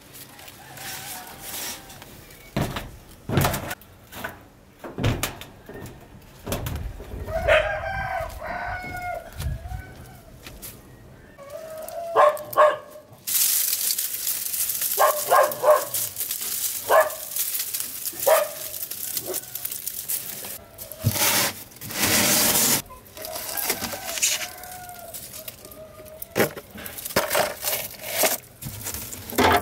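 A rooster crowing several times, over rustling, scraping and knocks as vines and debris are pulled aside by hand.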